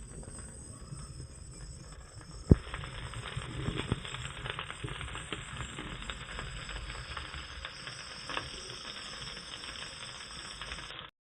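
Masala-coated sardines sizzling and crackling in hot coconut oil on a banana leaf in a frying pan, with one sharp knock about two and a half seconds in. The sound cuts off suddenly near the end.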